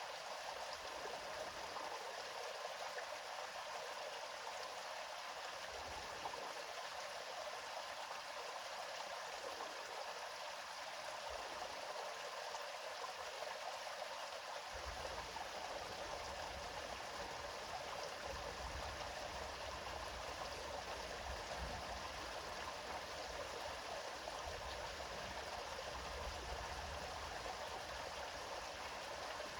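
River water flowing steadily, an even rushing sound; a deeper low-pitched part of the flow comes in about halfway through.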